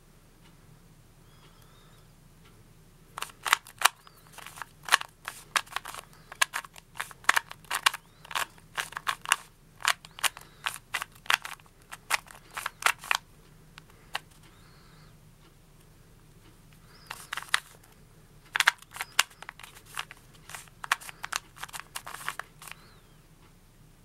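Plastic 2x2 Rubik's cube being turned rapidly by hand during a solve: quick runs of sharp clicks and clacks as the layers snap round. There are two spells of turning, with a pause of a few seconds near the middle.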